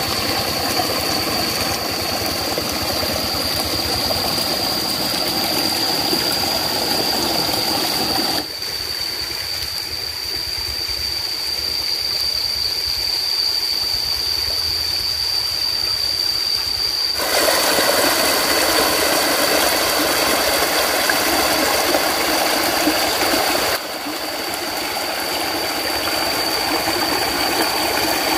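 Water gushing out of a hose pipe into a muddy ditch, then steady outdoor noise that changes abruptly between spliced clips, with one steady high-pitched whine running through it all.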